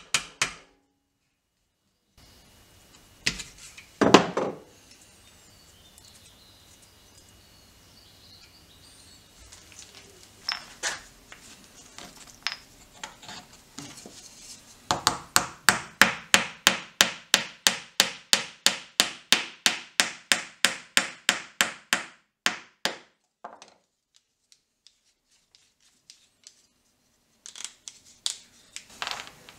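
Hammer tapping a thin wooden peg down into a small block of wood: a steady run of light, sharp strikes about three a second for some seven seconds. Before it come two heavier knocks and a few scattered taps, and near the end a few more taps.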